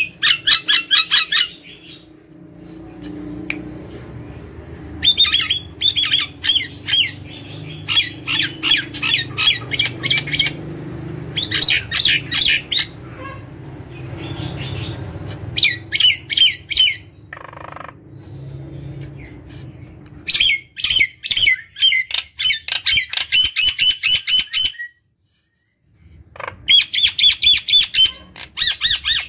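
Common myna singing in bouts of rapid, rattling chatter, each one to two seconds long with short pauses between, over a faint low hum in the first two-thirds.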